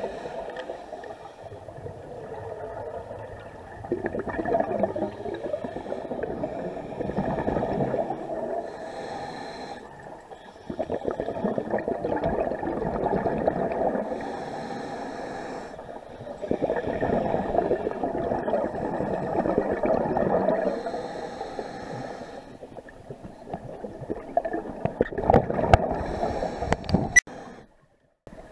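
Scuba diver breathing through a regulator, heard underwater: a short hiss on each inhale, then a long bubbling gurgle of exhaled air, about four breaths.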